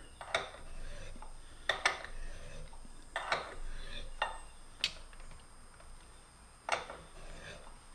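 Sharp metallic clinks of a steel alligator wrench on a tap's square shank as it is fitted, turned and re-seated between strokes while hand-tapping a hole in cast iron. About five clinks, roughly one every one and a half seconds.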